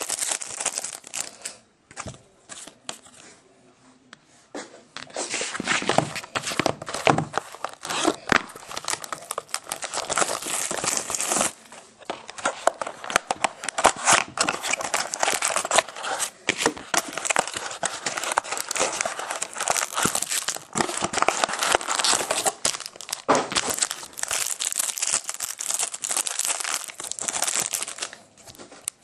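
Foil baseball card pack wrappers crinkling and tearing as packs are ripped open by hand, with a lull of a few seconds about two seconds in.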